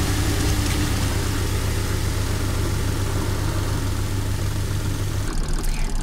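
Gizmos TG910 twin-tub portable washing machine spinning a load, its spin motor giving a steady hum while spun-out water rushes from the drain hose. About five seconds in the sound changes abruptly to a pulsing hum without the rushing.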